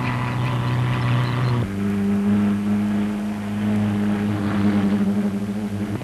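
Racing car engine running with a steady drone, its pitch dropping abruptly about a second and a half in.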